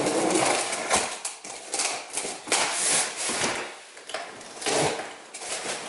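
A small knife slitting packing tape along a cardboard box, with the scratch and rustle of tape and cardboard in a series of irregular strokes.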